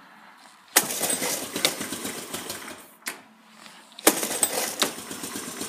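Honda ATC125M single-cylinder four-stroke engine being started: it fires about a second in and runs for roughly two seconds before stopping, then is started again about four seconds in and keeps running.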